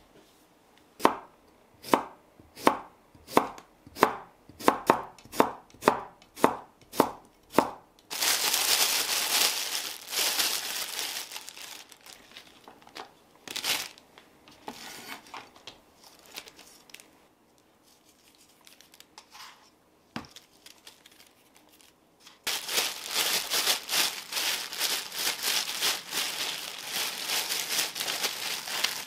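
Kitchen knife slicing cucumbers on a wooden cutting board, about a dozen crisp strokes in the first eight seconds. Then a thin plastic bag crinkling in two long stretches, the second as the salted cucumber slices are kneaded in the bag.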